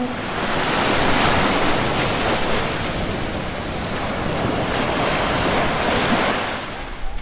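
Sea surf washing in, a rushing noise without any tone that swells about a second in, eases around the middle, swells again and fades near the end.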